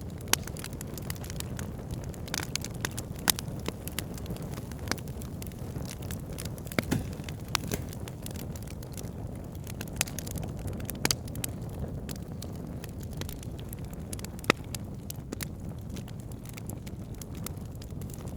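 Wood fire crackling: a steady low rumble of flames with frequent irregular snaps and pops, a few of them sharper and louder than the rest.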